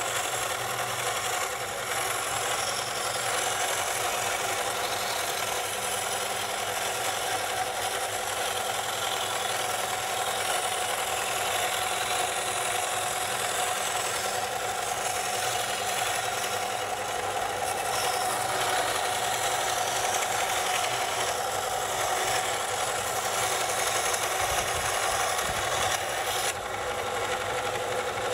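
Inland DB-100 coral band saw running steadily, its thin blade rasping through dead coral skeleton as the piece is fed into it under the water drip feed.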